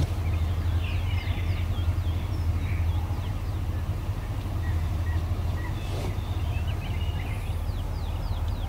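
A steady low hum, with small birds chirping again and again in short rising and falling notes. There is a light knock about six seconds in.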